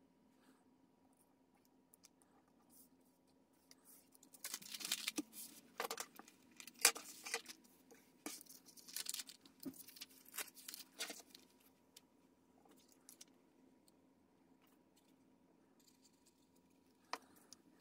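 Paper rustling and crinkling as journal pages are handled and pressed flat by hand, in a run of bursts over several seconds, then mostly quiet with a few light taps and one sharp click near the end.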